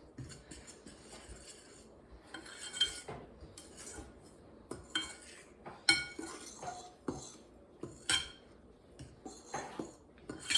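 A utensil stirring dry cake ingredients (flour, sugar, baking soda, salt) in a mixing bowl: soft scraping with irregular clinks against the bowl's side, a few of them ringing briefly.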